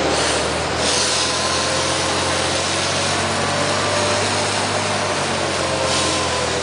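A fire engine's diesel running steadily while pumping, under a steady hiss of water from a hose stream spraying onto a fire truck.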